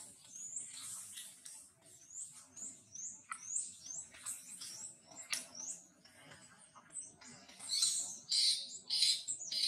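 Birds chirping: a run of short, high chirps, some sweeping up or down in pitch, about one or two a second, growing louder and busier near the end.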